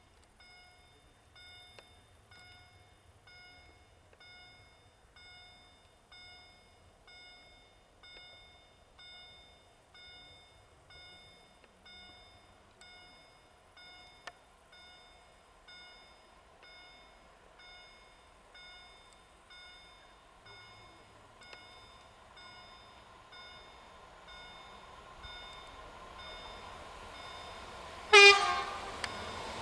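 Level crossing warning bell ringing steadily, about three strokes every two seconds, while an approaching electric freight locomotive with container wagons grows louder over the last few seconds. About 28 seconds in, the locomotive gives one loud, short horn blast.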